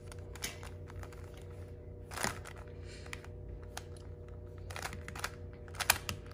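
Plastic 3x3 Rubik's cube being twisted by hand: irregular clicks and clacks as its layers turn, the loudest near the end, over a steady low hum.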